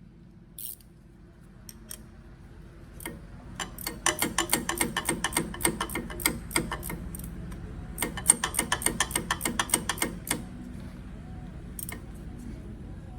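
A socket ratchet clicking rapidly in two runs of strokes, with a short pause between, as an oil line fitting is tightened down on the engine.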